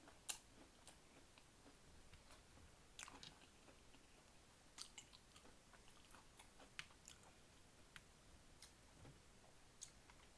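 A person chewing food close to the microphone, faint, with scattered wet mouth clicks and smacks at irregular intervals.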